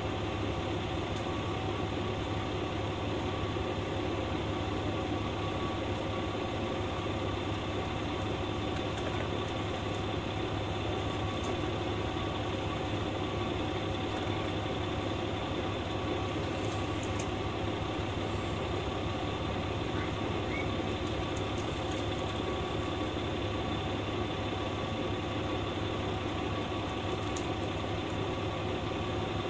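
Diesel engine of a JR West KiHa 120 railcar idling steadily while the car stands still, with no change in pitch.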